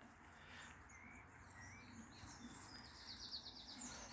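Faint distant birdsong: a few short chirps, then a quick rattling trill of high notes about three seconds in.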